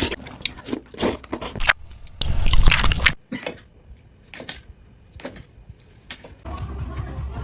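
Close-miked wet chewing and squishing of saucy food: a run of sharp wet smacks, a louder, longer burst about two seconds in, then scattered smacks. A steady music bed comes in near the end.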